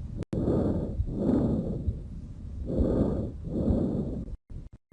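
Breath sounds recorded through a stethoscope on the chest: two full breath cycles, each an in-breath followed by an out-breath.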